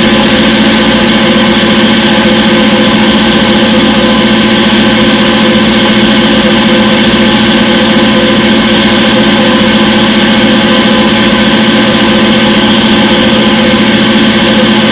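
Front-load washing machine running: a loud, steady machine hum made of several unchanging tones, with no change in pitch or rhythm.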